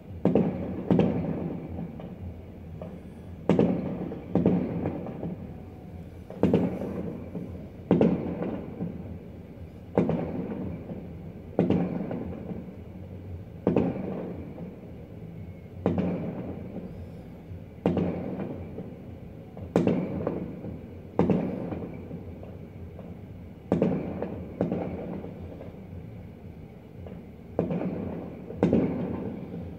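Aerial firework shells bursting: a steady series of booms, about one every two seconds, each followed by a long echoing tail.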